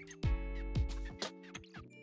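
Background music with a steady beat of deep kick drums and held synth chords. The beat drops out near the end, leaving only the held notes.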